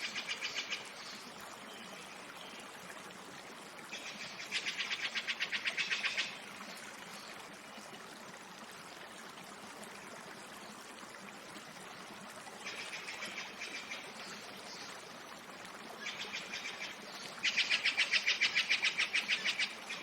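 An animal's trilling call in the forest, a rapid even train of high pulses. It comes in bouts of one to two and a half seconds, repeated several times, with the longest and loudest near the end, over a steady faint hiss.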